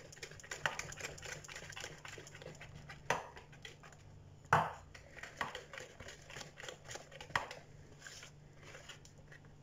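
Wire whisk beating a runny egg-and-sugar batter by hand in a plastic bowl: quick irregular light ticks and swishes, with three louder knocks against the bowl.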